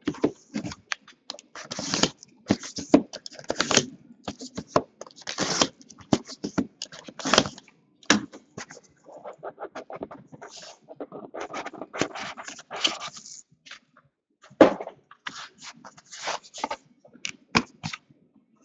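Hands opening a trading-card box and handling the cards on a hard tabletop: a run of scrapes, rustles and light knocks, with a longer stretch of rustling partway through and a sharper knock near the end.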